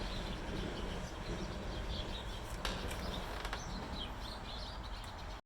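Outdoor background noise with a steady low rumble and small birds chirping. Two sharp clicks come in the middle, and the sound cuts off abruptly near the end.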